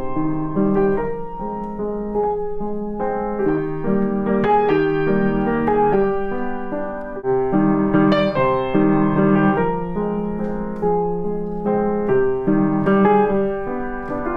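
Background piano music: a gentle piece of overlapping held notes.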